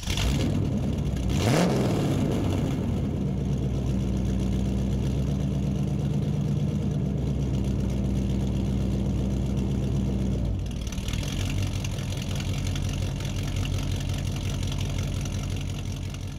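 Car engine revving once about a second in, then running steadily; about ten seconds in the note changes and a hiss comes up, and the sound fades out near the end.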